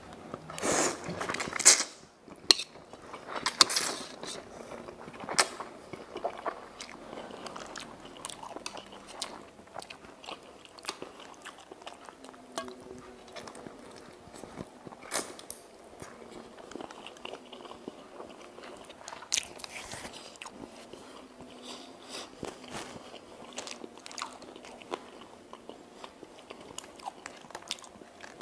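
Close-up eating of mie ayam noodles: a loud slurp of noodles about a second in, then continuous chewing with small wet clicks, broken by a few more sharp slurping or biting sounds, one around the middle.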